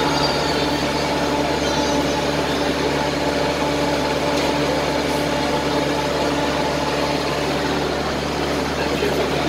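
Airport apron bus running steadily as it drives, heard from inside the passenger cabin: an even engine hum with a few held tones over a noisy background.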